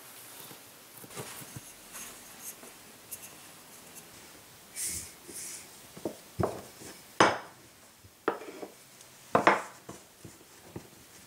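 Kitchen handling sounds: scattered taps, knocks and a short scrape of utensils or cookware, with the loudest knocks about seven and nine and a half seconds in.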